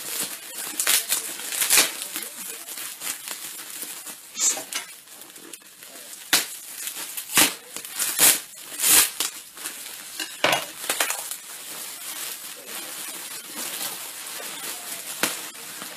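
Clear cellophane wrapping on a gift basket crinkling and crackling as hands pull and tear it open: irregular rustling with sharp snaps now and then, loudest about halfway through.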